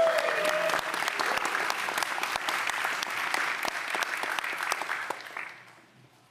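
Crowd applauding, dying away about five and a half seconds in.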